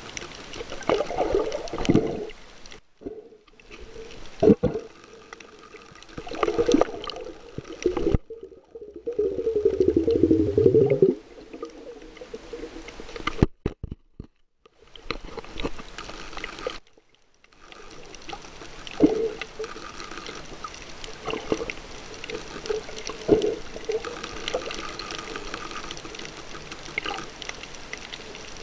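Underwater water noise heard through a submerged camera: irregular bubbling and swirling swells with scattered sharp knocks, and a few brief drop-outs where the sound almost vanishes.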